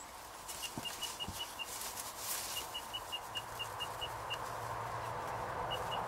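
A small bird calling in bouts of short, evenly spaced notes on one high pitch, about five a second, three times over, with a faint low hum in the background.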